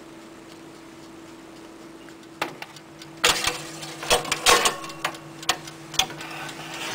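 Metal baking tray being pushed into a countertop toaster oven with metal tongs: a string of sharp metallic clacks and scrapes of tray and tongs against the oven rack, starting about two and a half seconds in, over a faint steady hum.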